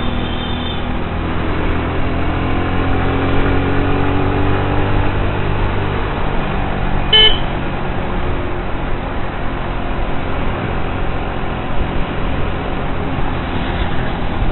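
Motorcycle riding through road traffic, its engine running steadily under road noise, with an engine's pitch climbing over a few seconds early on. A short horn toot sounds about seven seconds in.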